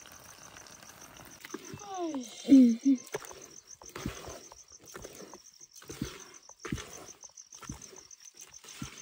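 A cricket trilling in fast, even pulses. Around two seconds in comes a short falling, voice-like cry, then a series of knocks about once a second.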